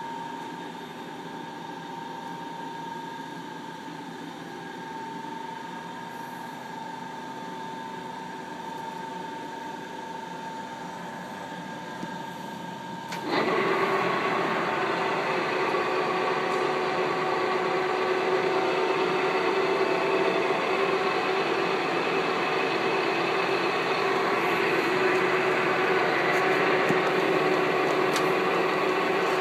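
Harrison M500 centre lathe running, its geared headstock giving a steady mechanical whine with several fixed gear tones. About 13 seconds in the sound jumps suddenly louder and busier, then holds steady.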